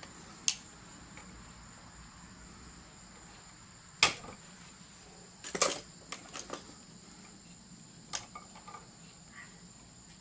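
Sharp clicks and light knocks of hands working electrical cable, a wall-mounted electrical box and hand tools. They come singly and in a short cluster, the loudest about four seconds in and around five and a half seconds in.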